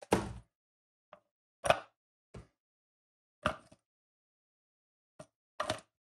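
Onion pieces being dropped into the bowl of a plastic hand-pull food chopper, with the bowl handled: a string of about seven short, irregular knocks and thuds on plastic.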